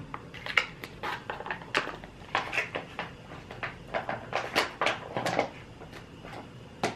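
Plastic-foil food pouch crinkling and rustling in a quick series of crackles as it is handled and emptied into a pot.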